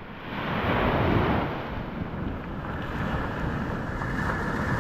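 Surf washing onto the beach, with wind buffeting the microphone; the wash swells up about a second in, then settles to a steady hiss.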